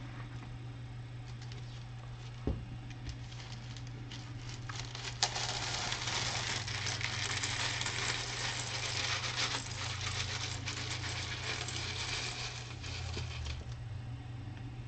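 Many small plastic Lego pieces pouring out of a cup and clattering onto a surface in a dense patter. It starts about five seconds in and lasts around eight seconds, with a low steady hum underneath.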